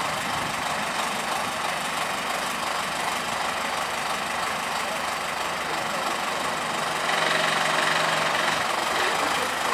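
1957 Kö 0451 diesel locomotive's engine running steadily, briefly louder about seven seconds in.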